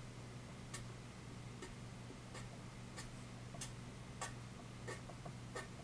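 Sharpie felt-tip marker making short shading strokes on paper: about eight faint, scratchy ticks, roughly one every two-thirds of a second.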